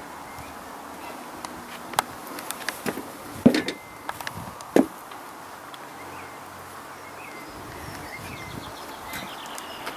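Footsteps and knocks on timber deck boards, the loudest about three and a half and five seconds in, over a steady outdoor background with faint bird chirps in the second half.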